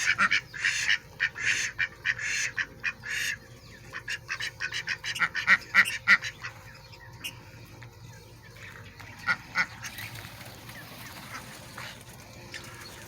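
Domestic ducks quacking in quick runs of short calls, busiest through the first six or seven seconds and thinning to a few scattered quacks after that.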